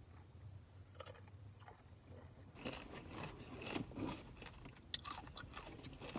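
Close-up crunching and chewing of a crisp tortilla chip, beginning about two and a half seconds in after a few faint clicks.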